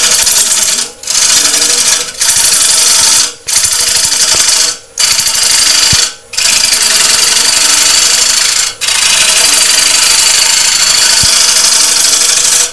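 Bowl gouge cutting a spinning sycamore bowl blank on a wood lathe: a loud rushing hiss of shavings coming off, in about seven passes with brief breaks between, the last about four seconds long, over the lathe's steady motor hum. The gouge's edge has been blunted by a silica seam in the sycamore.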